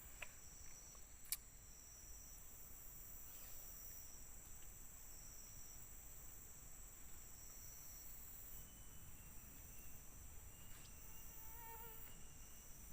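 Forest insects shrilling steadily: a high continuous drone, with a slightly lower shrill that switches on and off every second or two. One sharp click about a second in is the loudest moment.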